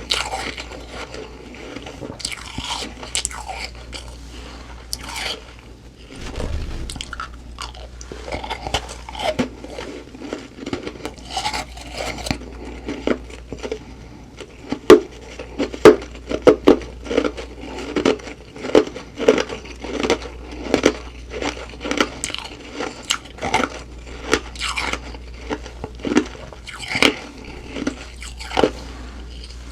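A person chewing humidifier frost, a soft, powdery ice, close to the microphone: crisp crunches, scattered at first, then steady chewing in the second half.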